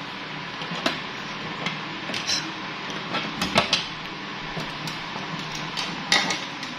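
A key and its keyring clicking and clinking in the round lock of a metal coin box as it is unlocked, a string of sharp metallic clicks with the loudest about three and a half seconds in.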